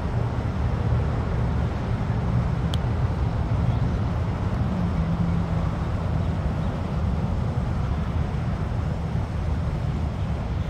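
Steady rumble of nearby highway traffic on Interstate 95.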